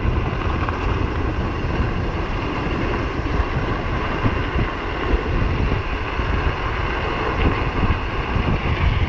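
Wind buffeting the microphone in a steady, uneven rush while riding an electric bike, with road noise underneath.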